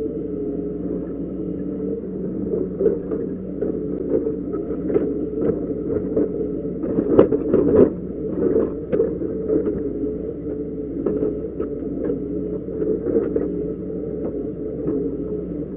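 Doosan DX140 excavator's diesel engine running steadily under hydraulic load, heard from the cab, while the bucket scrapes and knocks against earth and stones. The loudest cluster of knocks and scrapes comes about seven to eight seconds in.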